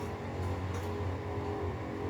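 Freight train running: a steady low rumble with faint steady higher tones above it.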